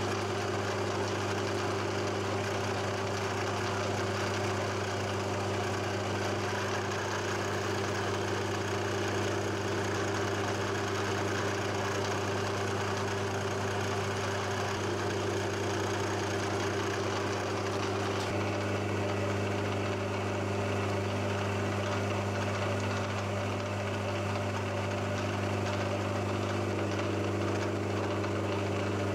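Milling machine running with a steady motor hum while a small drill bit is fed into a metal block held in the vise.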